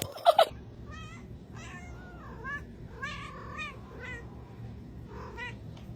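A cat mewing repeatedly in short, high-pitched calls, with a louder cry right at the start.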